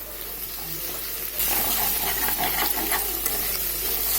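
Onions and green chillies frying in hot oil in a pan, a steady sizzle with fine crackles that gets suddenly louder about a second and a half in.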